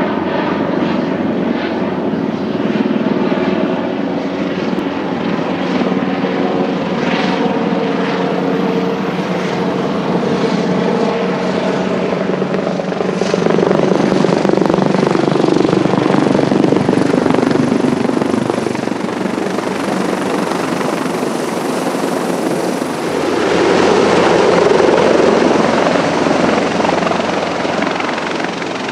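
Military helicopter coming in to land, with continuous turbine and rotor noise. Steady engine tones run for the first part, then the noise swells louder about halfway through and again near the end.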